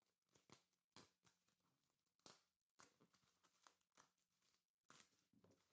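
Faint scissor snips and crinkling of plastic wrapping and packing tape as a taped parcel is cut open. The sound comes in irregular short bursts.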